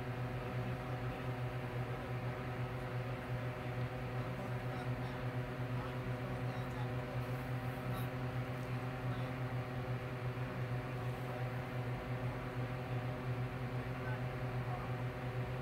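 A steady, low machine hum that does not change in pitch or level.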